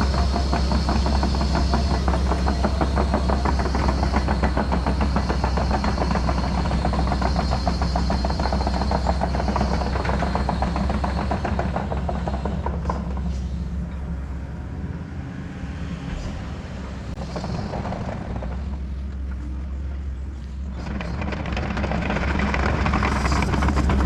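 Excavator diesel engine running under load with a rapid, even pulsing. About halfway through it drops back toward idle for several seconds, then revs up again near the end.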